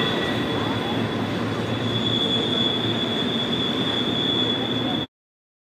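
Train wheels squealing as rail cars roll through the sharp Horseshoe Curve: one steady high-pitched flange squeal over the rumble of the cars. It cuts off suddenly about five seconds in.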